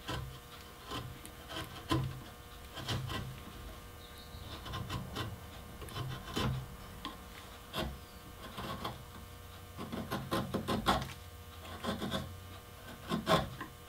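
A hand-held flat chisel pared across the carved wood of a rocking horse's ear, in short scraping cuts at an irregular pace. It is cutting the damaged area flat so that a new piece can be glued on.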